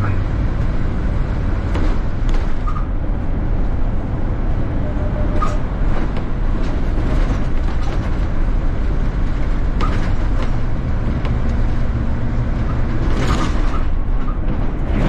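City bus in motion, heard from inside: a steady low rumble of engine and road noise, with scattered clicks and rattles from the cabin and a louder burst of noise near the end.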